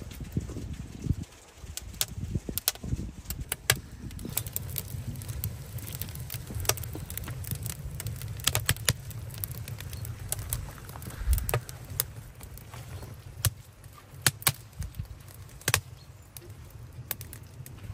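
Split wood and kindling burning in a clay oven, crackling with sharp, irregular snaps and pops, over a low steady rumble.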